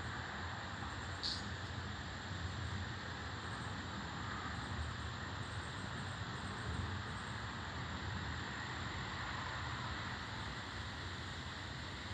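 Steady outdoor rushing noise with a low, uneven rumble underneath, and a short high chirp about a second in.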